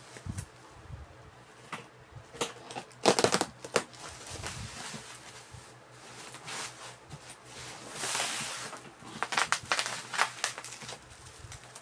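Cardboard box and packaging being handled: scattered knocks and clicks with short bursts of rubbing and crinkling, and a longer rustle about eight seconds in.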